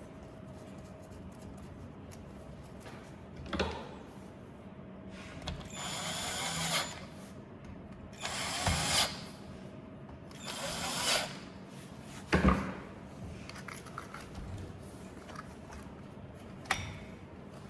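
Power drill-driver run in three short bursts of about a second each, driving screws while a belt sander is reassembled. Several sharp knocks of parts and tools come in between the bursts.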